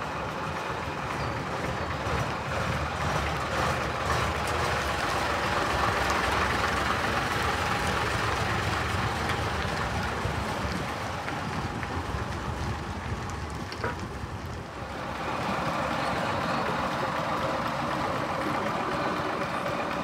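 Classic Crosville double-decker bus's engine running as the bus drives slowly past at close range. The sound is loudest through the middle and dips briefly about three-quarters of the way through.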